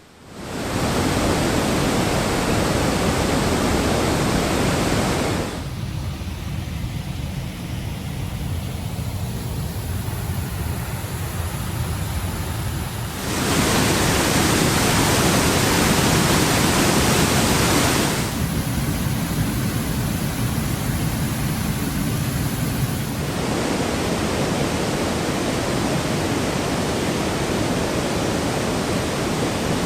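Rushing water from a series of small waterfalls, 3 to 5 feet high: a steady, even noise of falling water that shifts abruptly in level and tone four times.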